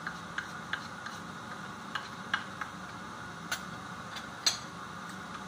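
Wooden spatula and spoon tapping and scraping against a pan of curry while it is stirred: a scatter of irregular light clicks, the sharpest about four and a half seconds in, over a steady hiss.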